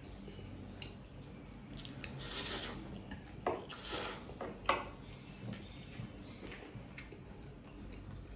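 A person slurping Chinese noodles: two loud, hissing slurps about two and four seconds in, with light clicks and wet chewing noises between.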